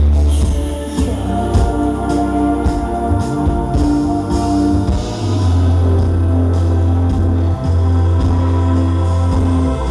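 Live electropop band playing loudly through a venue PA: sustained synth chords and a deep synth bass, held steady through the second half, with a woman singing into a microphone.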